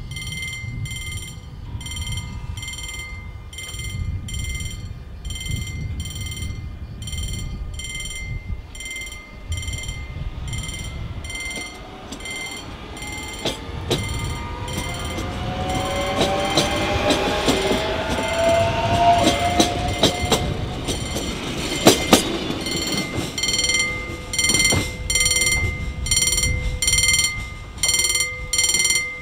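A level crossing warning bell rings in an even, repeating pattern while an electric multiple unit passes on the rails. The train's run builds to its loudest in the middle, with rising whining tones and sharp clicks over rail joints, then fades.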